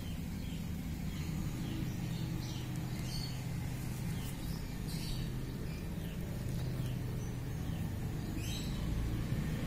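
Faint, quick high-pitched chirps, a few every second, over a steady low hum.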